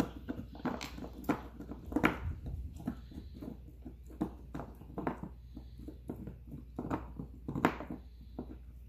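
Chihuahua–fox terrier puppy gnawing a hard nylon Nylabone chew stick: irregular clicks and crunches of teeth on the nylon, the strongest about two seconds in and again near the end.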